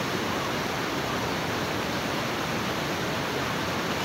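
Fast, muddy river rushing over rocks and through shallow rapids: a steady, even rush of water.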